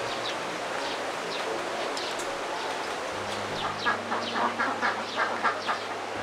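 A quick run of short, high animal calls, sparse at first and then coming about four a second from a little past halfway, over a low steady hum.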